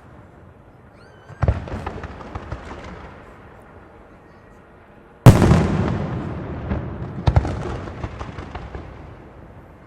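Firework shells bursting in a pyrotechnic castillo display. There are three blasts, the loudest about halfway through, and each is followed by crackling and a rumble that fades away.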